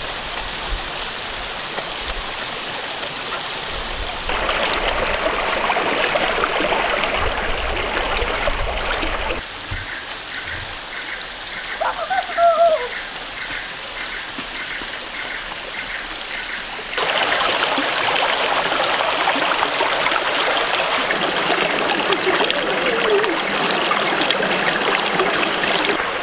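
Shallow stream water running over rocks, a steady rush that jumps in loudness at a few abrupt cuts. About twelve seconds in, a brief gliding cry rises over the water.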